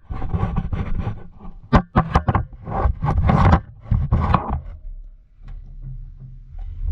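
Water sloshing and a GoPro in its housing knocking around inside a washing machine drum as it tumbles. Loud, irregular surges with sharp knocks for the first few seconds, then quieter.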